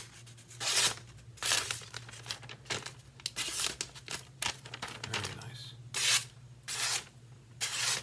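A freshly sharpened knife slicing through a sheet of magazine paper in repeated quick strokes. Each cut is a short papery rip, about ten in all, over a low steady hum. The clean slicing shows the blade is sharp.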